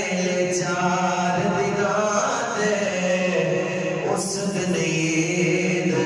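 A man's solo voice singing an Urdu devotional poem without accompaniment. He draws out long melodic notes that bend up and down in pitch.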